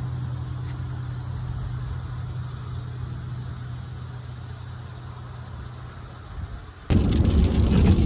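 A car engine idling as a steady low hum while parked. About seven seconds in it cuts suddenly to much louder rain and road noise inside a car driving through the storm.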